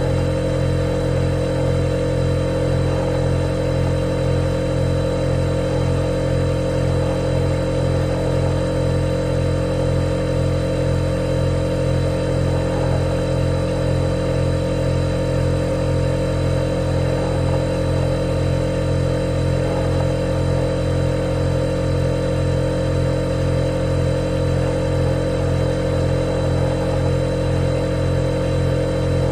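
Refrigerator humming steadily: a layered low hum with a thin, high steady whine above it.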